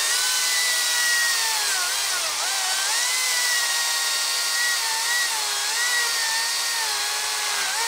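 Makita DUC353 36-volt cordless brushless chainsaw cutting through a log of about 220 mm: a steady high electric whine over the hiss of the chain in the wood. The pitch sags about two seconds in and wavers again around five to six seconds as the cut loads the motor.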